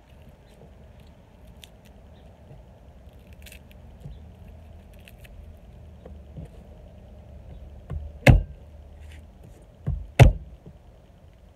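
Garlic cloves pulled apart and set down on a wooden cutting board with faint small clicks, then two pairs of heavy thumps about eight and ten seconds in as the cloves are smashed under the flat of a knife blade, the second blow of each pair the louder.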